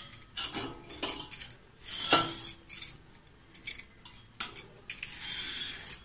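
Hand-held metal vegetable peeler scraping strips of skin off a large ripe cucumber in repeated short strokes, with a metallic clink with a brief ring about two seconds in and a longer scrape near the end.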